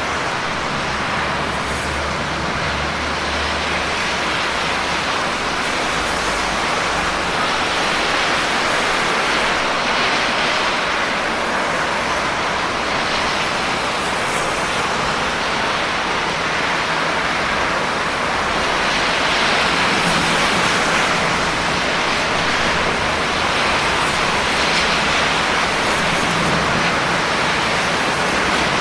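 Steady rain falling, a dense even hiss with a low rumble beneath.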